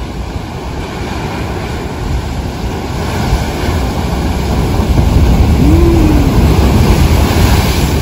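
Rough sea surf breaking and crashing against the concrete tetrapods of a breakwater, a continuous rushing roar with wind buffeting the microphone. The surge builds louder from about halfway through.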